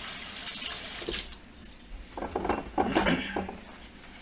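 Kitchen tap running as hands are washed, shut off about a second in, then a cluster of clinks and clatters from dishes and metal utensils being handled.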